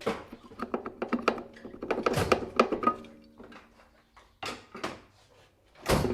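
Metal knocks and clatter as the flywheel is pulled off a Briggs & Stratton mower engine's crankshaft and handled. One knock about halfway leaves a short metallic ring, and there are two heavier knocks in the second half.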